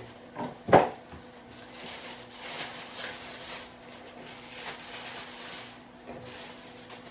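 Unboxing noise: a sharp knock about a second in, then several seconds of rustling and small clicks as packaging and items are handled.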